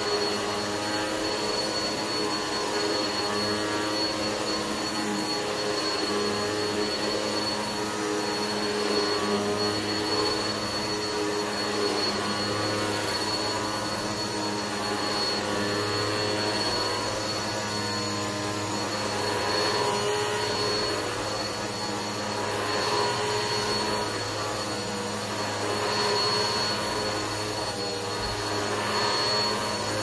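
Bagless upright vacuum cleaner running steadily with a motor hum and a high whine as it is pushed back and forth over a rug. The loudness swells slightly with each stroke.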